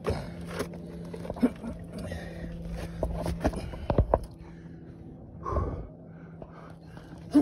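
Hiker's footsteps and shoe scuffs on rock, an irregular run of knocks and scrapes, with heavy breathing from the hard climb; a louder breath comes about five and a half seconds in.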